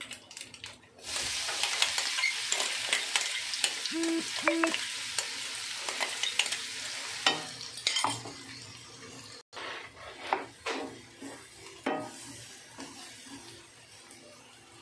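Spice seeds crackling in hot oil in a non-stick kadhai, then a sudden loud sizzle about a second in as green masala paste hits the oil. The sizzle fades over several seconds, and from about seven seconds a wooden spatula scrapes and stirs the paste against the pan.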